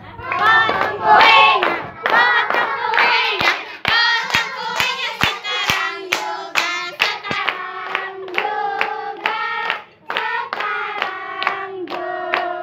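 A group of voices singing a birthday song together, with handclaps keeping time at about two claps a second through the middle.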